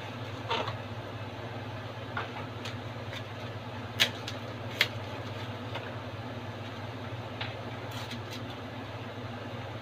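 A few small sharp clicks and rustles from a plastic SIM card pack being handled, the loudest two about four and five seconds in, over a steady low hum.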